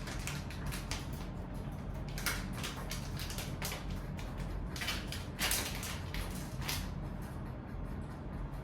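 Steady low room hum with scattered small clicks and rustles, irregular and close together, as of objects being handled at a desk.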